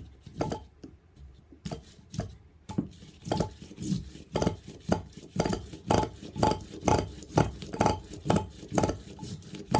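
Sharp metallic clicks, sparse at first and then regular at about two a second, from a nitro engine's pull-starter one-way bearing being worked by hand. The bearing is gummy and not running freely.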